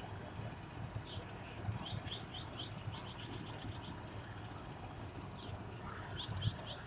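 A small bird chirping in quick runs of short high notes, several a second, over a steady low rumble; a brief hiss about four and a half seconds in.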